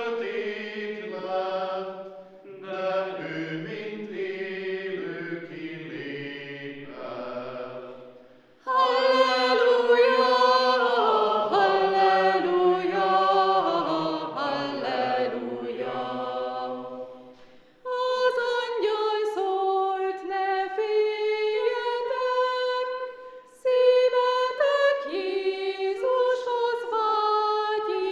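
Small choir singing a German Reformation-era chorale hymn in Hungarian. Men's voices sing the verse, everyone comes in louder on the Halleluja refrain about nine seconds in, and higher women's voices begin the next verse about eighteen seconds in.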